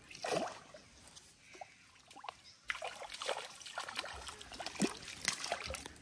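Pond water splashing and sloshing in irregular bursts, a few separate splashes at first, then a busier run of splashing from about halfway in.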